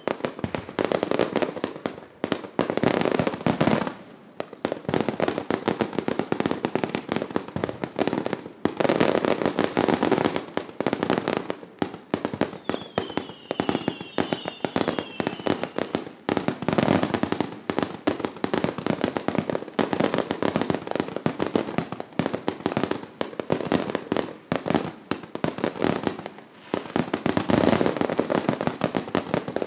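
Fireworks display: continuous rapid crackling and popping of firework bursts, swelling into heavier volleys every few seconds.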